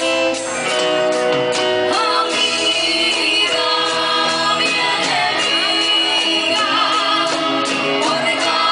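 Live band playing a song with women singing the lead together, over drums, bass guitar and a steady percussion beat.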